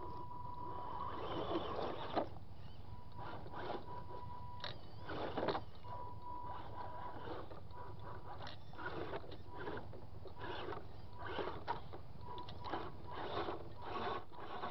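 Small electric RC trail crawler driving in short spurts: a thin motor whine that comes and goes, with irregular knocks and scrapes as its tires and chassis climb over loose wooden boards.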